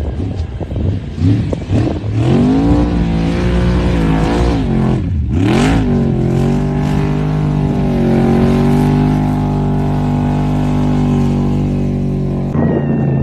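A vehicle engine revving hard, climbing in pitch over the first few seconds. About five seconds in it dips sharply with a short burst of noise, then it is held steady at high revs until it cuts off near the end.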